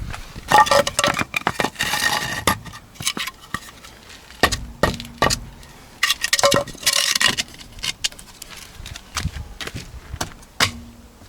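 Hard objects, metal by the sound of the ringing, clinking and knocking as they are handled and set down. There are two longer stretches of ringing clanks, one just after the start and one about six seconds in, with scattered lighter knocks between them.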